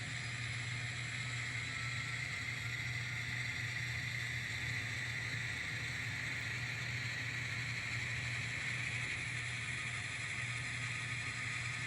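N scale model locomotive running along the track, a steady whir over a constant low hum.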